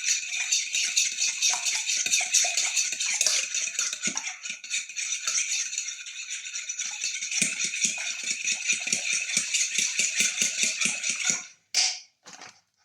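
Three raw eggs being beaten in a bowl, a fast even clatter of about five strokes a second. It stops about a second before the end, followed by a few short knocks.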